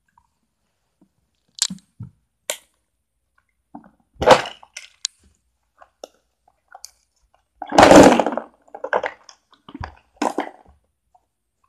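Plastic toy dishes and Play-Doh tubs being handled: scattered clicks and knocks, then a louder scraping rustle about eight seconds in, followed by a few smaller scuffs.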